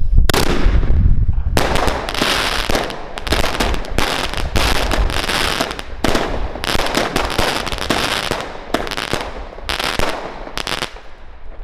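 Aquarius 25-shot consumer fireworks cake firing in rapid succession: a string of sharp shots and aerial bursts, about two a second, that stops shortly before the end.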